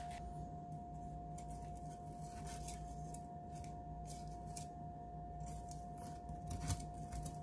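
Metal tongs clicking and scraping against an air fryer basket as chicken wings are picked up and turned over: a string of faint, irregular clicks over a steady hum.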